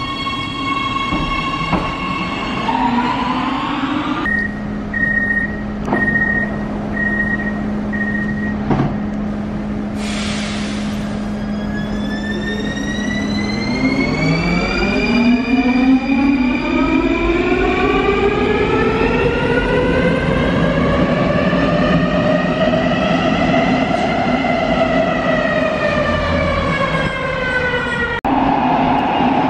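Electric metro train at a station. A standing train hums, a row of short high beeps sounds, and air hisses briefly. The train then pulls away, its traction motors whining and rising in pitch for about ten seconds before easing off, and the sound cuts off sharply near the end.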